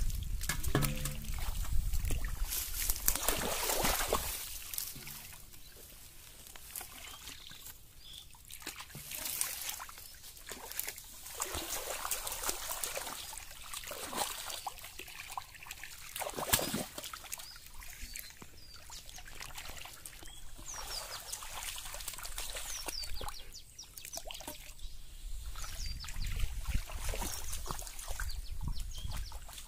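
Shallow muddy water splashing and sloshing in irregular bursts as a child wades through it and snatches at fish by hand, with fish thrashing at the surface.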